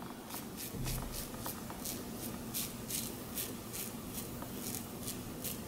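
Double-edge safety razor scraping through lathered stubble on the chin and neck in short, quick strokes, about three a second, each a faint crisp rasp.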